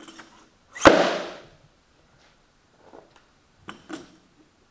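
Rubber bumper plate slid onto a steel barbell sleeve, clanking once loudly against the plates already loaded about a second in, the metal ringing as it dies away. A few lighter clicks follow near the end as the plate is pushed along the sleeve.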